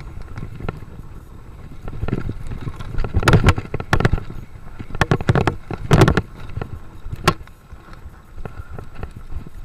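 Mountain bike rattling and clattering over a rough dirt trail, with wind rumbling on the microphone. Sharp knocks from bumps in the trail are loudest around three to four seconds in and again about six seconds in.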